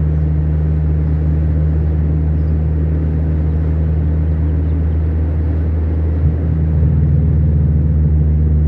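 Steady low drone of a car's engine and tyres heard from inside the cabin while cruising on a highway. There is a brief thump about six seconds in, and the drone runs slightly louder after it.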